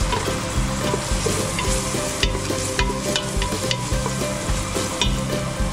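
Chopped onions, garlic and ginger sizzling in hot oil in a stainless steel pot, with a wooden spoon stirring and scraping against the pot in short clicks.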